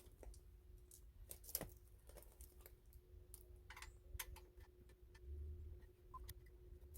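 Faint, scattered small clicks and ticks of screws being put back into a lawn mower by hand, with one sharper click about a second and a half in and a few more in the middle, over a faint steady hum.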